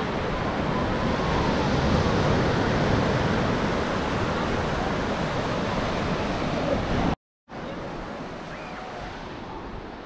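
Sea surf washing up a sandy beach: a steady rushing of breaking waves and foam. About seven seconds in it breaks off for a moment and comes back quieter.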